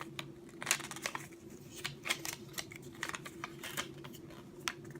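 Irregular light clicks and taps of small plastic K'NEX toy pieces being handled, over a steady low hum.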